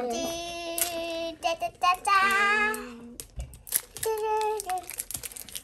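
A young girl singing a few long held notes without clear words, in three short phrases with pauses between them, and a few light clicks in the pauses.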